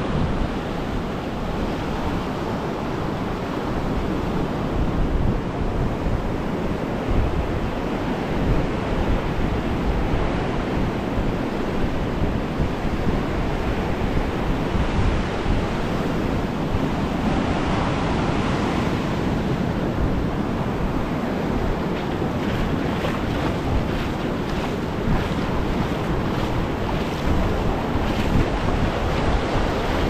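Sea surf washing onto a sand beach, a steady rush of waves with one swelling wash about halfway through, and wind buffeting the microphone with a low rumble.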